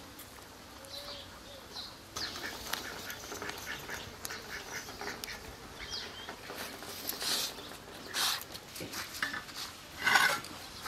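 Ducks quacking again and again, the loudest call about ten seconds in, with a steel plate clinking as a pile of small puti fish is tipped out onto the ground.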